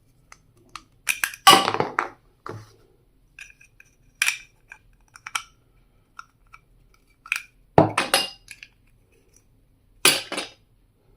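Stationery items being handled and set down on a hard surface: scattered clicks, knocks and clinks. Louder clattering comes about a second and a half in, again near eight seconds, and again around ten seconds.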